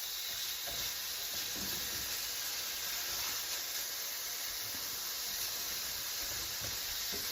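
Steak bites and vegetables sizzling in a hot pan, a steady hiss.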